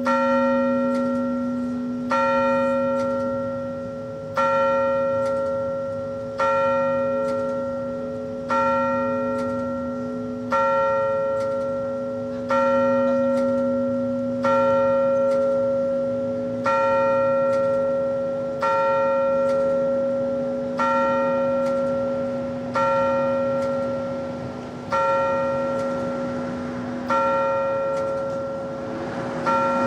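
A single large bell tolling slowly, struck about once every two seconds, about fifteen strokes in all; each stroke rings out with the same pitch and hums on, fading, until the next. A rushing noise rises under it near the end.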